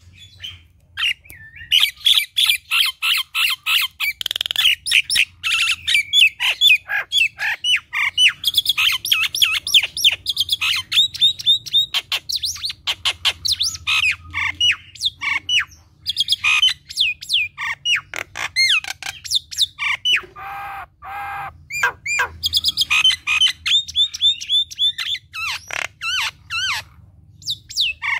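Common myna singing a rapid, nonstop chattering song of short whistled notes, clicks and squawks. About twenty seconds in, a lower, harsher grating note breaks the run.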